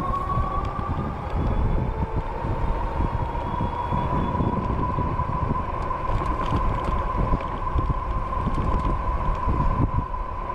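E-bike motor whining at a steady high pitch while riding, with wind rumbling on the microphone.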